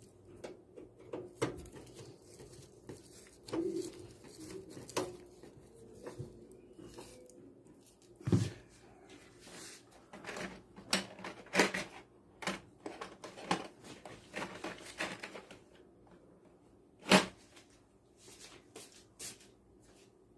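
Parts being handled while a new power supply is fitted into a desktop PC case: irregular clicks, taps and knocks. The two loudest knocks come about eight and seventeen seconds in.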